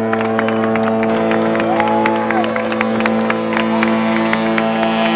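Crowd clapping and cheering over a steady, sustained drone of several held pitches; a single higher tone rises, holds and falls away about two seconds in.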